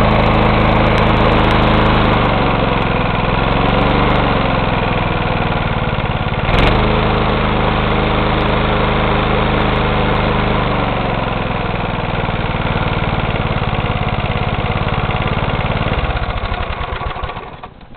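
Briggs & Stratton 3.5 HP single-cylinder four-stroke engine on a Toro rotary lawn mower, running with its speed rising and falling several times. There is one sharp click about six and a half seconds in. Near the end the engine is shut off and slows to a stop. The owner judges the engine to be in good condition, burning no oil.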